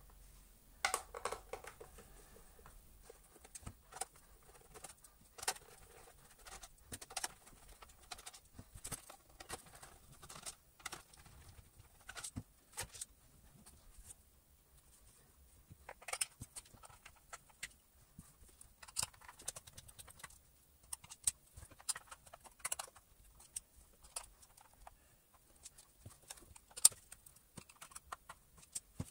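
Sped-up handling of a Dyson V10 cyclone assembly being unscrewed and taken apart: a quick, irregular run of small clicks and taps from screwdrivers, screws and plastic parts.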